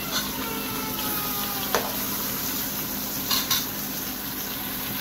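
Chunks of deer meat sizzling steadily as they fry with onions in oil in a pot, while a metal ladle stirs, scraping and clinking against the pot a couple of times.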